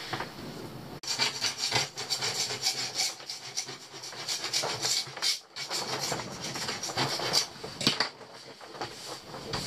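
Irregular scraping and rubbing with small clicks and knocks as old electrical wiring is handled and worked loose across the boat's floor.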